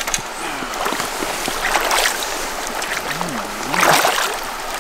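Shallow river water running steadily over rocks, with splashing in the water about two seconds and again about four seconds in.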